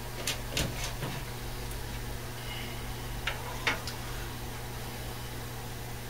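Light clicks and ticks from soldering wire splices by hand, a few about a second in and a pair at about three and a half seconds, over a steady low hum.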